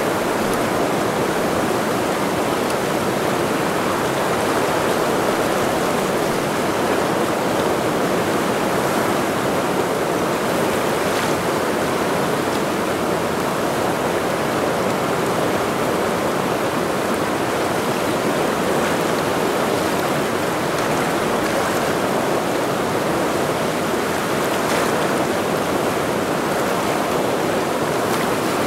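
The Ursul, a mountain river, rushing past: a loud, steady wash of flowing water.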